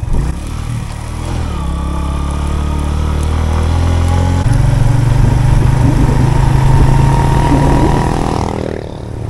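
Suzuki GS150's single-cylinder four-stroke engine running under load uphill in a low gear, heard from on the bike. About four seconds in the engine note steps up in pitch and gets louder, then eases off near the end.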